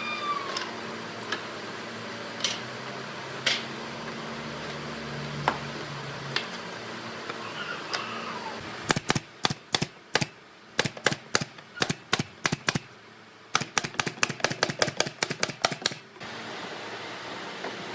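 A steady low hum with a few scattered clicks, then from about halfway through a quick run of sharp taps, several a second, for about seven seconds before it stops suddenly.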